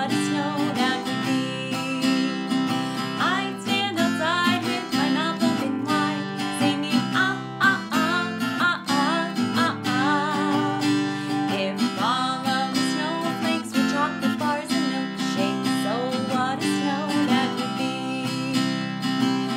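A woman singing a children's song, accompanying herself on a strummed acoustic guitar with a steady strumming rhythm.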